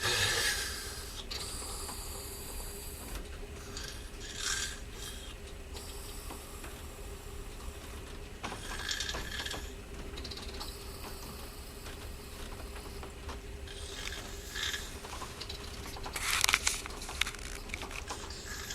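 A person snoring loudly, with harsh, rasping snores every few seconds at an uneven pace, the loudest near the end. A faint steady hum lies underneath.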